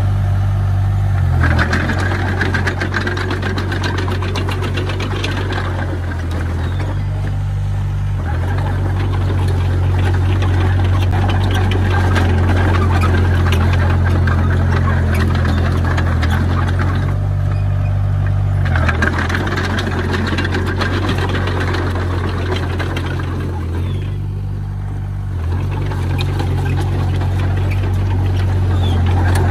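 Diesel engine of a Komatsu D20P small crawler bulldozer running hard with a rapid clatter, its note dropping and picking up again several times as the load changes.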